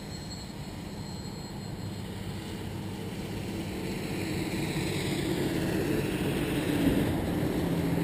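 Road traffic passing, including a truck, growing louder over several seconds and peaking about seven seconds in, over a steady low hum.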